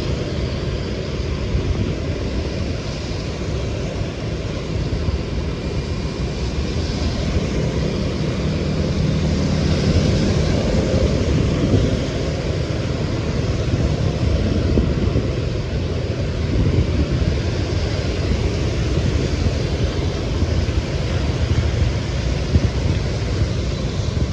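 Steady wind noise on the microphone of a moving bicycle, mixed with the rumble of street traffic.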